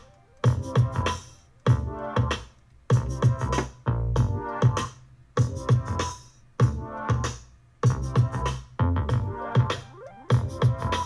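Electronic music with a heavy beat and strong bass playing through a Soundbot SB520 Bluetooth speaker, streamed from a tablet and turned up to maximum volume. The main beat lands about every second and a quarter.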